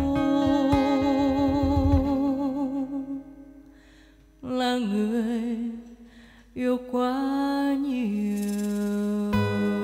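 Female voice singing long held notes with wide vibrato over soft acoustic guitar, with hand-drum strokes in the first two seconds. The music fades almost to silence a few seconds in, then the voice comes back in two more held phrases, and guitar strumming returns near the end.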